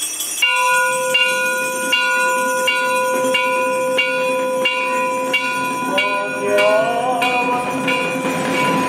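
Bells ringing in a steady rhythm, about three strokes every two seconds, over a loud steady held tone. Wavering, sliding tones join in about six seconds in.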